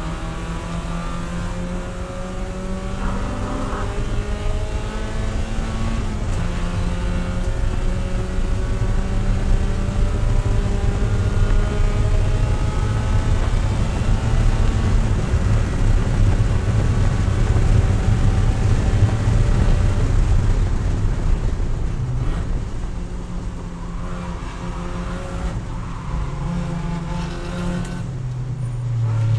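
Spec Miata race car's four-cylinder engine heard from inside the cockpit. It revs up through the gears under full throttle, runs at high revs down the straight, then the pitch drops as the car brakes and downshifts near the end.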